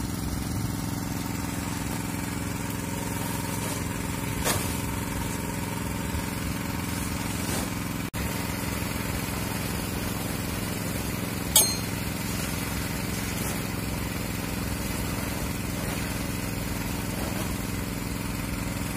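Engine of a well-drilling machine running steadily at a constant speed. A light knock comes about a quarter of the way in and a sharper click past the middle.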